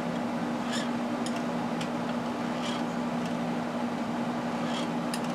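Steady low hum of shop background noise, with a few faint, irregular light clicks as the rear shock's mounting bolt on a BMW K1200LT is worked while the wheel is jacked up to take the bike's weight off the shock.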